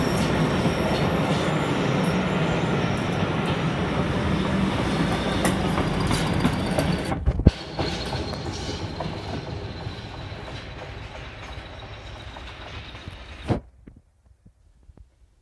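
Passenger train running past on the rails, wheels clattering with a thin high wheel squeal over the rumble. The noise drops sharply about seven seconds in, fades as the train draws away, and cuts off suddenly near the end.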